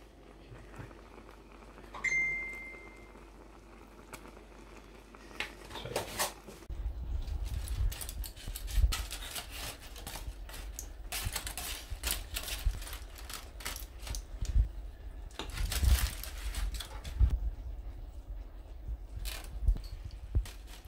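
A single short steady beep about two seconds in. From about seven seconds, irregular clinks, clicks and soft knocks of a utensil and food on a ceramic plate, with low handling bumps, as crayfish tail meat is served onto mashed potato.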